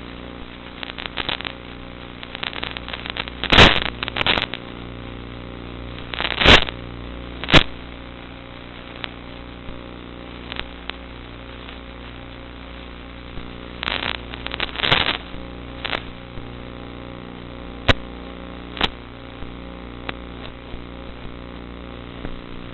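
Steady hum of a model aircraft's motor, heard through the FPV recording. Sharp crackles break in several times, clustered around a third of the way in and again past the middle.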